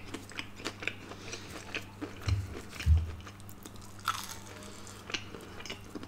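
Close-up eating sounds: fried chicken being bitten and chewed, with scattered crisp crunches and a couple of soft, low mouth thuds.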